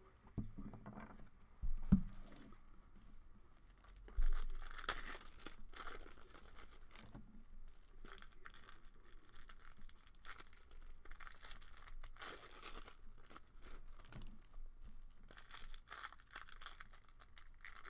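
Cellophane wrappers of Panini Prizm basketball cello packs being torn open and crinkled in bursts as the cards are handled, with two low knocks in the first few seconds, the second the loudest sound.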